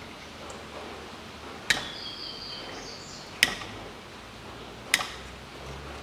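Three sharp clicks about a second and a half apart, from a screwdriver working a plastic wiring-harness connector, with birds chirping faintly in the background.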